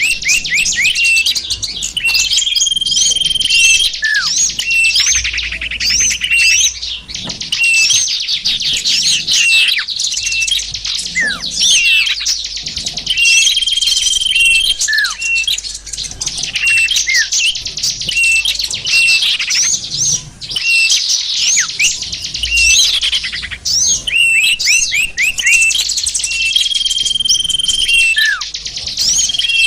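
Dense chorus of small songbirds chirping and trilling at once, with a held whistle note now and then and short falling whistles: a bird-lure (pikat) recording of mixed small-bird calls, played to draw small wild birds in.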